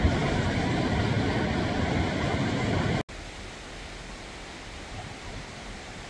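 Mountain stream water rushing over a rocky cascade: a steady, loud rush. About three seconds in it cuts off abruptly, and a much fainter steady rush of water carries on.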